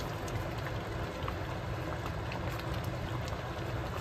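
A pot of fish curry boiling steadily on the stove: a continuous bubbling with scattered small pops.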